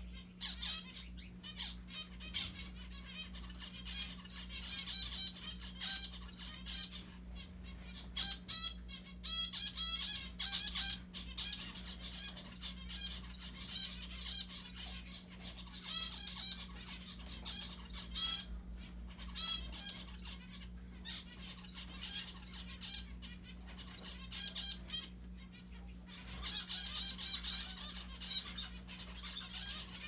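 Zebra finches chirping in quick runs of short, high calls, busiest in the first ten seconds and again near the end, over a faint steady low hum.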